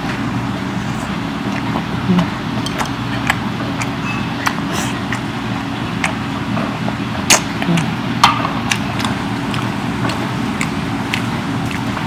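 Close-miked eating: chewing with scattered sharp clicks and clinks of chopsticks and plates. Under it runs a steady low machine hum with several steady pitches.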